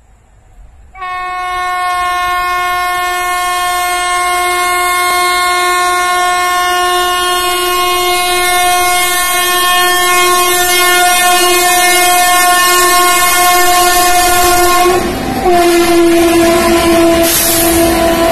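Freight train locomotive's horn sounding one long, loud, steady blast as the train approaches and runs through the station. About 15 seconds in it breaks off for a moment and then sounds again, while the rumble and clatter of the passing wagons rise beneath it.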